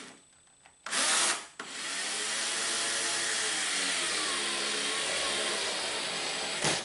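Cordless drill-driver running, first in a short burst about a second in, then steadily for about five seconds. Its motor whine dips and rises under load as it drives a screw through a washer into the cooler's plastic lid.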